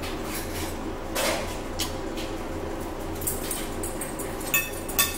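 Eating at a table: a fork clinks against a plate several times, with the sharpest clinks near the end, along with chewing, over a steady low hum.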